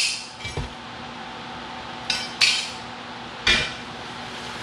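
Stainless steel exhaust clamps clinking and clanking as they are handled out of a cardboard box and set down on a concrete floor: several sharp metallic knocks with a short ring, spread out a second or so apart.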